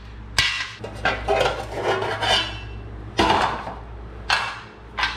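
Thin sheet-metal exhaust heat shields clanking and rattling as they are handled and set down, a string of sharp metallic clanks with a short ring after each, over a steady low hum.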